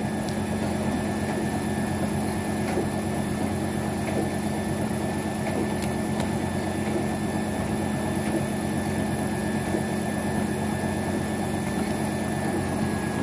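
Paddy-field water pump motor running with a steady hum.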